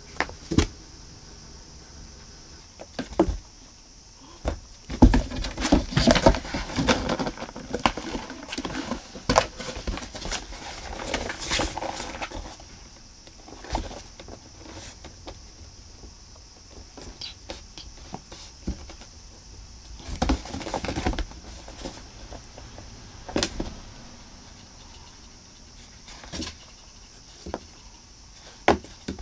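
A cat playing inside a cardboard box, its paws scraping and batting at the cardboard and a chenille wand toy: irregular bursts of rustling, scratching and knocks, busiest about five to seven seconds in, around eleven to twelve seconds, and again around twenty seconds.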